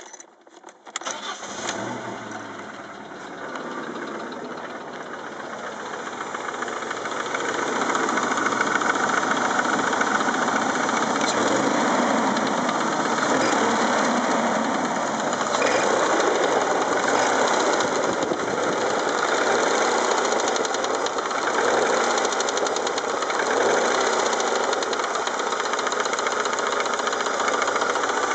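A 1997 BMW E36 318i's four-cylinder engine running, growing louder over the first several seconds and then holding steady, with a knocking noise that the owner is asking about.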